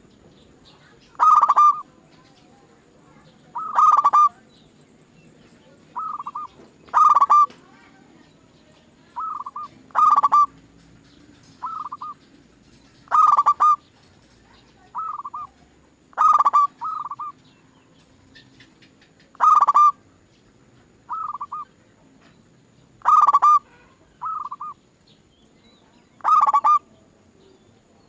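Zebra doves (perkutut) cooing: short staccato phrases of quick coo notes repeated every one to three seconds. Louder phrases alternate with softer ones.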